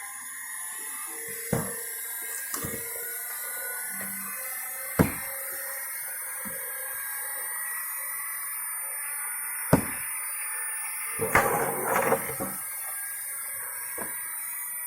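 Heavy blows of a 3 kg splitting maul on a log, spaced several seconds apart, on a log that resists splitting. A denser cluster of knocks comes about eleven to twelve seconds in, over a steady high whine in the background.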